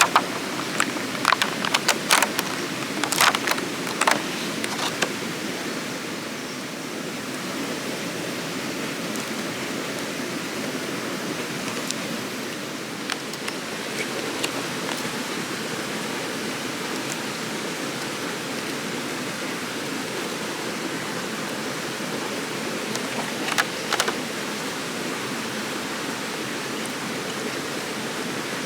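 Steady rush of flowing stream water, with a few sharp clicks and knocks in the first five seconds and again about 24 seconds in.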